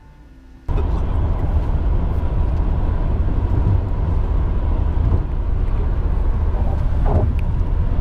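Steady road and engine noise heard from inside a car's cabin at highway speed, heavy in the low end. It starts abruptly less than a second in, cutting off faint music.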